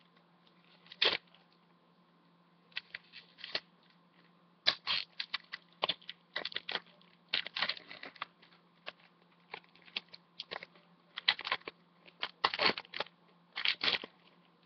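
Foil wrapper of a Pokémon TCG booster pack being torn open and crinkled by hand: irregular crackling rustles in short bursts, starting about a second in.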